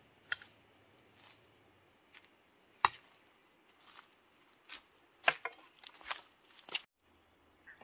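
Vegetables being harvested by hand: several sharp snapping chops at irregular intervals, over a steady chirping of insects.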